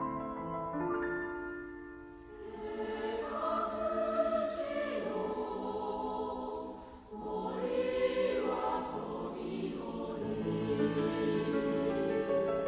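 Mixed choir of women's and men's voices singing with piano accompaniment, in long held phrases that break off briefly about two seconds and seven seconds in.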